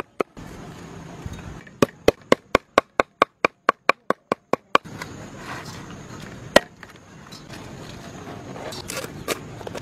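A large kitchen knife chopping fast on a wooden chopping board, about five sharp knocks a second for roughly three seconds. This is followed by a steady background hiss with a few scattered knocks, one louder near the middle.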